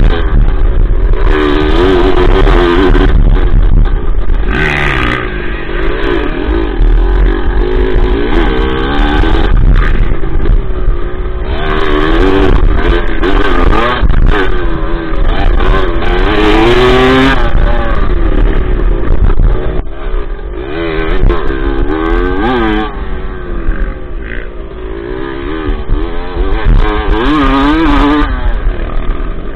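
A dirt bike's engine, heard from on board, revving up and dropping back again and again as it is ridden around a dirt track, easing off somewhat about two-thirds of the way through.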